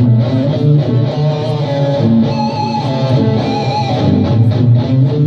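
Live amplified music with an electric guitar being played, over strong low notes and a beat.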